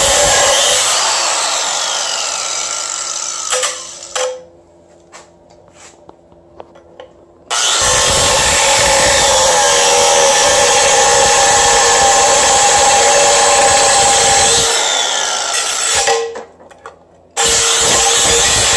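Angle grinder with a cutoff wheel cutting into the cast aluminium case of a Mazda Miata transmission: a steady high whine over a loud grinding hiss. It winds down about four seconds in and is off for about three seconds, runs again for about eight seconds, then stops and starts again shortly before the end.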